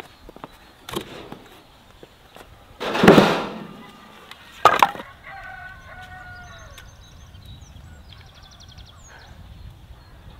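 Chickens clucking in the background, with a loud noisy rush lasting about a second around three seconds in and a sharp knock shortly after.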